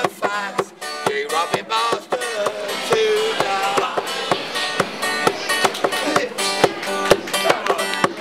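Acoustic guitar strummed in a steady rhythm, with a voice singing over it.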